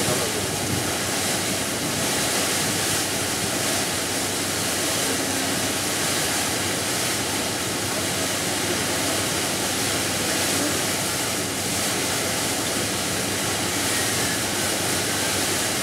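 Steady rushing noise of wind and water past a riverboat under way, with a low steady hum beneath it.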